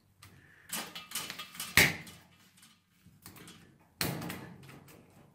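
Two pairs of steel pliers clicking and scraping on stiff steel spring wire as a new loop is bent in a mattress spring unit. A few sharp metallic clicks with lighter ticks between them; the loudest comes just under two seconds in, and one at four seconds fades over about a second.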